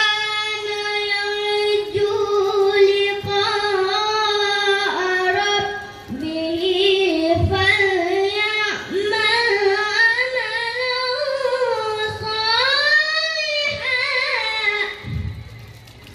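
A boy's voice reciting the Qur'an in melodic tilawah style through a microphone, in two long held phrases with winding ornamental turns of pitch, separated by a short breath about six seconds in. The second phrase ends shortly before the end.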